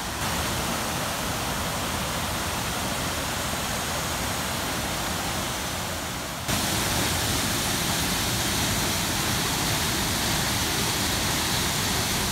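Waterfall: a steady rush of white water that steps up suddenly in level about halfway through.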